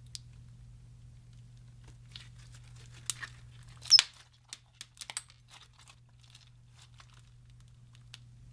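Slime being squished and stretched by hand: scattered sticky clicks and small pops, the loudest a sharp pop about four seconds in, followed by a few more.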